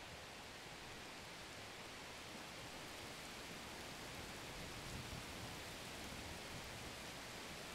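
Faint steady hiss with no pitch, rhythm or distinct events.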